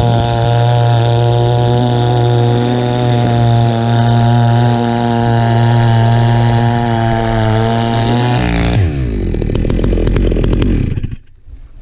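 Holzfforma G660 92 cc two-stroke chainsaw with a modified Bulletproof Performance muffler, running at full throttle at steady high revs as it cuts through a log. Near the end the throttle is released and the engine winds down quickly to a low idle, then the sound cuts off suddenly.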